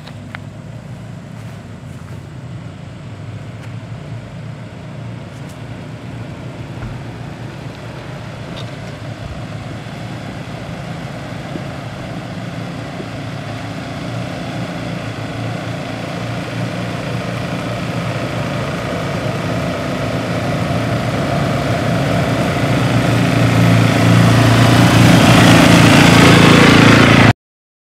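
Old Toyota Land Cruiser's engine running at low, steady speed as it drives slowly closer, growing steadily louder. The sound cuts off abruptly just before the end.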